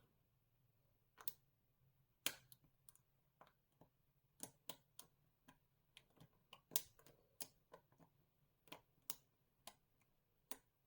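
Lock pick tapping and clicking against the pins inside an EVVA Akura 44 dimple lock cylinder under tension: faint, irregular light metallic clicks, a few each second.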